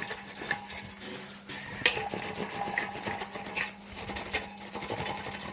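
A cleaner-soaked cloth rubbing over a bicycle disc brake rotor: irregular scraping strokes with a few light clicks. The rotor is oil-contaminated, dirty enough that even wiping it makes a sound, the same contamination that makes the brake pads squeal.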